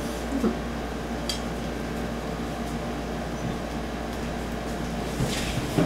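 Steady mechanical room hum in a kitchen, with a few light clinks of a utensil against a dish: one about a second in and several near the end.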